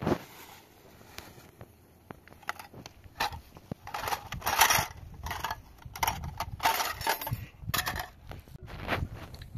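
Household items being handled: plastic bags crinkling and small objects knocking and clattering in irregular bursts, with a sharp knock at the start.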